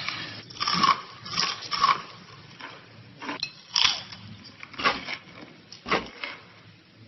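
Someone biting into and chewing crunchy food, with several sharp crunches spread a second or so apart.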